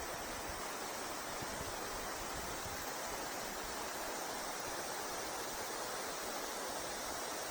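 Steady rush of the Uono River's flowing water.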